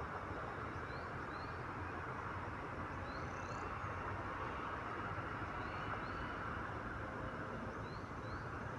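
Outdoor ambience: a steady hiss with a bird repeating a pair of short, rising whistled notes about every two seconds.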